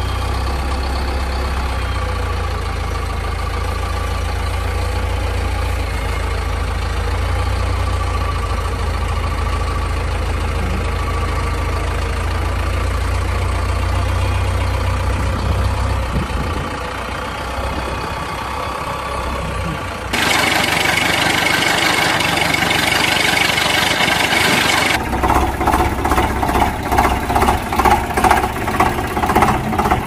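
Engine sound effects: a steady low engine hum through the first half, changing to a harsher, noisier engine sound about two-thirds of the way in, then an engine beating in even pulses about twice a second near the end.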